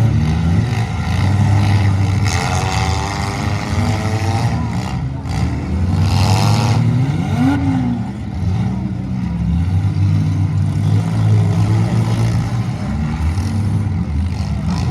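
Demolition derby cars' engines running and revving together, their pitch rising and falling, with a few brief sharp noises partway through.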